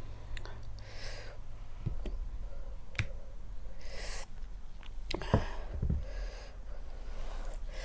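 Close-miked eating sounds: a person chewing rice and curry with sharp mouth clicks and smacks, between short breaths through the nose and mouth.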